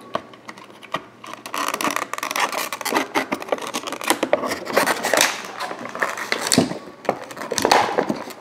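Close handling noise of fingers working at a small plastic figure and the string tying it into its packaging: a run of small clicks, scratches and rustles.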